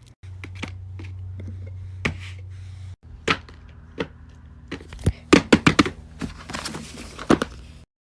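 Fidget toys being handled: sharp clicks and taps, coming in a quick run of them from about five seconds in, with a low steady hum under the first few seconds.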